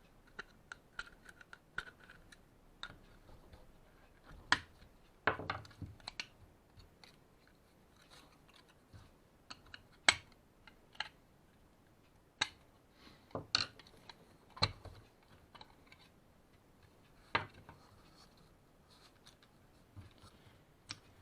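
Hands handling and taking apart a small plastic printer gearbox (the fuser drive gearbox with its spring-loaded safety clutch): irregular clicks and light knocks of plastic parts, with a few sharper ones.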